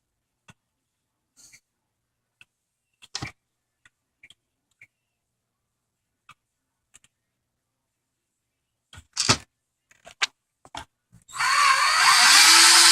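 Scattered small clicks and knocks of parts being handled, with a sharper knock about nine seconds in; then, about eleven seconds in, a power drill-driver with a hex bit starts up and keeps whirring steadily, spinning screws out of the RC car.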